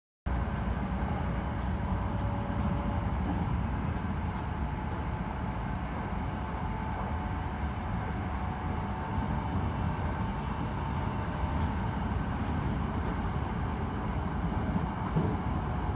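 Hankyu Takarazuka Line electric train running at a steady, reduced speed: a continuous low rumble with a faint motor whine.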